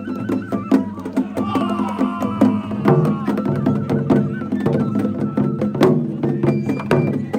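Traditional Japanese festival music: percussion strikes in a quick, steady rhythm under a high melody that moves in steps.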